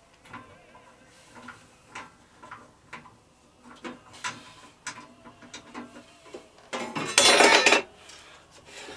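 Metal tools and parts being handled in a workshop: scattered clinks and clicks, then a louder clattering rattle lasting under a second about seven seconds in.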